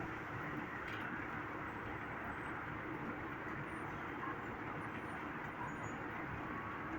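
Rain falling in a steady, even hiss, picking up again.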